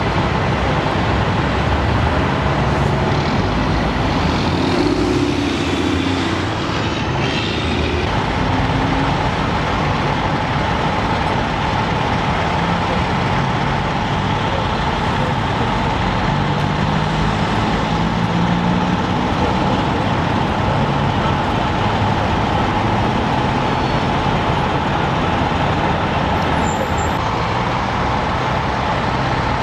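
Steady road traffic noise with heavy vehicle engines running, a dense continuous rumble. A faint steady whine joins about eight seconds in.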